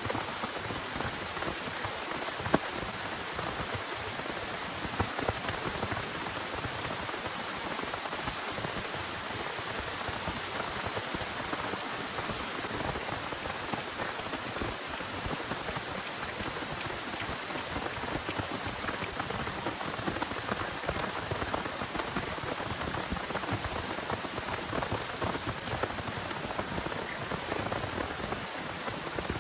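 Heavy rain falling steadily, a dense even hiss full of individual drop hits. A sharp tap stands out about two and a half seconds in, and a smaller one about five seconds in.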